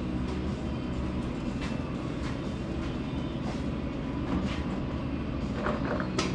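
Snowmobile rolled on a wheeled dolly across a concrete floor: a steady rolling rumble, with a few sharp clicks near the end.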